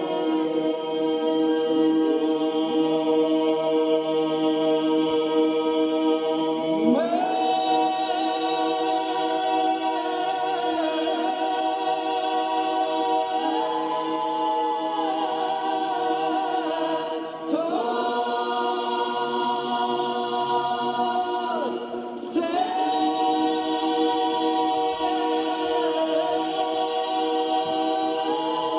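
Choral music: unaccompanied voices singing long held chords, which shift to new chords three times.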